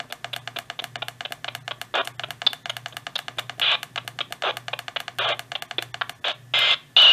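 Midland ER50 weather radio scanning up the AM band under the held tune button: a rapid, even run of clicks, about four to six a second, as it steps from frequency to frequency. Short bursts of static and snatches of station audio sound between the steps, longer and louder near the end.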